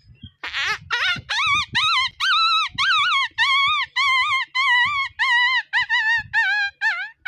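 A man's voice imitating a puppy crying: a quick run of short, high-pitched whimpering cries, about three a second, each rising and falling in pitch, the cries gradually lower toward the end.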